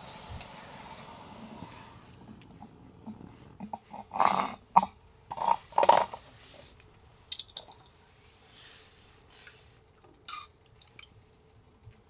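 Camp cookware clattering: several sharp knocks and clinks of metal cups and pots being handled, loudest in a cluster a few seconds in, with a couple more near the end. At the start a steady gas stove burner hiss fades out about two seconds in.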